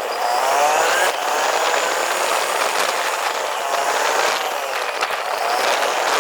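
Vehicle engine on the road, its pitch rising and falling several times as it speeds up and eases off, over steady road noise.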